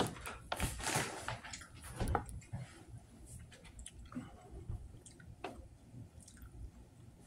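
A person chewing a mouthful of chorizo taco in a soft flour tortilla, with many small clicks of the mouth. The chewing is loudest in the first couple of seconds and softer after.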